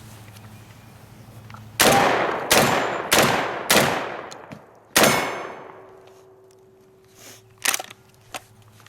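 MKA 1919 Gen 2 semi-automatic 12-gauge shotgun firing five rounds of 2¾-inch Winchester Universal 7.5 shot: four shots about half a second apart, then a fifth after a longer pause, each with a decaying echo. Two shorter sharp knocks follow near the end.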